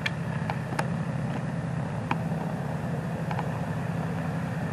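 Warbird radial piston engines idling on the ramp: a steady low drone, with a few faint clicks over it.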